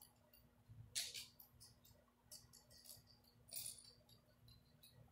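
Near silence: room tone with a steady faint hum and a few short, faint hissy sounds about one, two and a half and three and a half seconds in.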